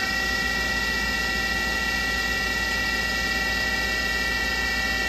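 Spindle of a 2006 Fadal VMC 8030 HT CNC vertical machining center running steadily at 2000 rpm just after spinning up. It gives a steady, high whine of several tones with a low hum beneath.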